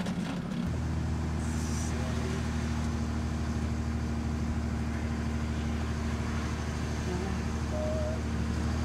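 Engine and road noise heard inside a moving vehicle's cab: a steady low drone that grows stronger less than a second in.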